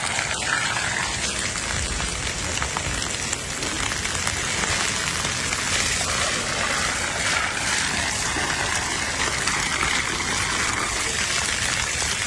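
Steady, even rain-like hiss of water.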